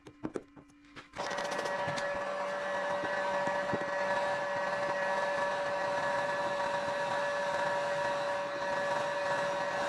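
A handheld heat gun switched on about a second in after a few light clicks, then running steadily with a blower hum, blowing hot air onto freshly laid paint protection film to warm it.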